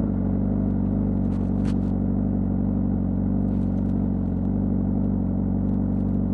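A 2025 Honda CBR600RR's inline-four engine, breathing through its stock exhaust, running at a steady engine speed while the bike is ridden.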